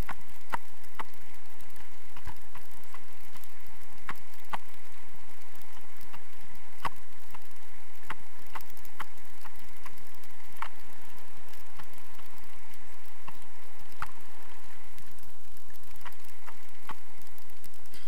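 Steady wind noise on the microphone during paraglider flight, with irregular sharp clicks one to three times a second.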